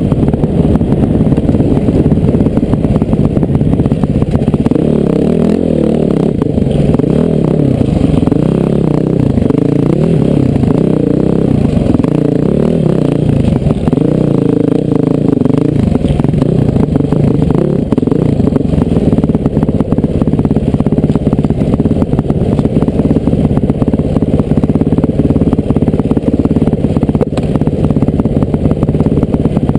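Honda CRF450R dirt bike's single-cylinder four-stroke engine running under load, heard from a helmet-mounted camera. The revs rise and fall repeatedly through the first half and hold steadier later.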